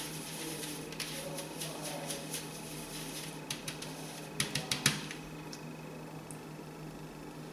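Soaped makeup brush bristles scrubbed in circles on a plastic plate, a soft scratchy swishing. About four and a half seconds in, a quick run of sharp clicks as the brush knocks against plastic, then quieter as it is swished in the tub of water for a first rinse.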